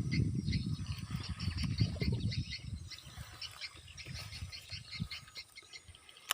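Frogs calling in quick, repeated short chirps. A low, uneven rumbling noise is also heard and dies away about halfway through.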